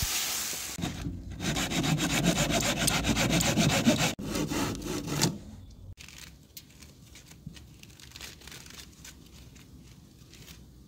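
Wooden spoon stirring and scraping chunks of meat and onion frying in a gulaš kettle, a quick run of rasping strokes over the sizzle. It cuts off about five seconds in, leaving faint scattered rustles and ticks of a cat's paws on dry fallen leaves.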